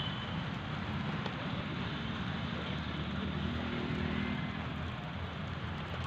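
Steady outdoor background noise, a low even rumble and hiss with no distinct calls or impacts.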